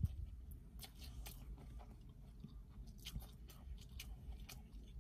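A person chewing mouthfuls of Chinese takeout, with faint, irregular wet clicks and small crunches, over a low steady hum.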